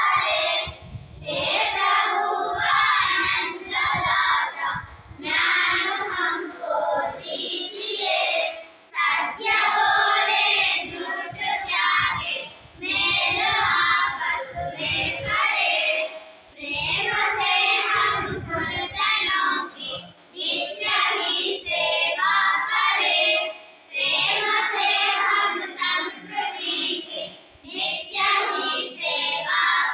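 A class of schoolchildren chanting a Hindi poem together in a sing-song recitation, with a brief break between lines every few seconds.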